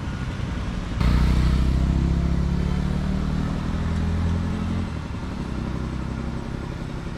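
A vehicle's engine passing on the road. It comes in suddenly about a second in, runs loudly for about four seconds, and fades after that.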